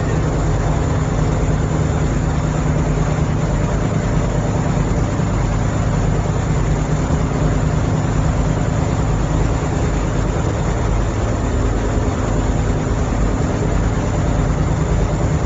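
A steady, low engine drone with a constant hum, unchanging throughout.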